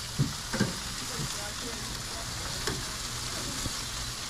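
Chicken leg quarters sizzling steadily over hot charcoal on an open grill. Two short knocks about a quarter and half a second in.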